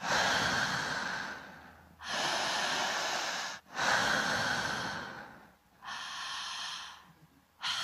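A woman breathing slowly and deeply into a handheld microphone held at her mouth. There are four long breaths, each a loud rush of air lasting one to two seconds, with short pauses between them.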